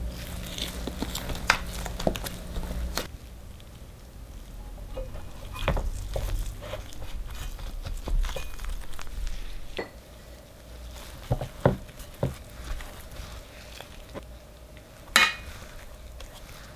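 Kitchen handling sounds: light scraping, taps and clicks of a scraper on almond sponge cake and a square metal cake ring on a wooden board, with a few sharper knocks, the loudest near the end. A low hum stops about three seconds in.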